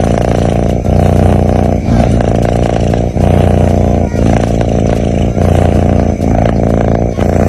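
A sleeping cat snoring: a loud, low rumble with each breath, broken by a short pause about once a second.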